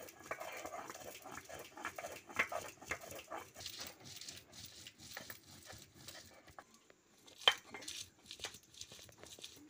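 Stone muller rubbed and rocked over a flat grinding stone (sil-batta), grinding wet spice paste: irregular scraping strokes with small stone-on-stone knocks. There is one sharp click about seven and a half seconds in.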